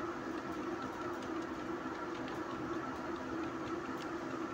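Faint, irregular keyboard key clicks as a short name is typed, over a steady background hum.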